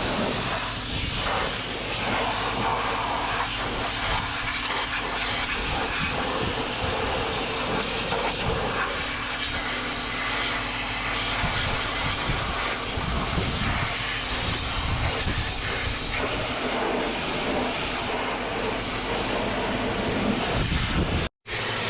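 High-pressure washer jet spraying onto farm machinery: a steady hiss of water over the low hum of the washer's motor. It cuts out for an instant near the end and comes straight back.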